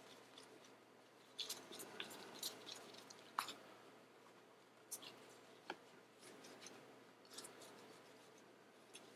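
Faint rustling and scattered light ticks of a lens-cleaning pad being rubbed and pressed over a phone's glass screen.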